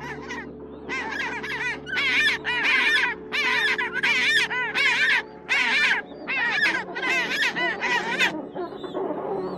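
Farm birds calling in a rapid run of repeated loud calls, roughly two a second, starting about a second in and tailing off near the end.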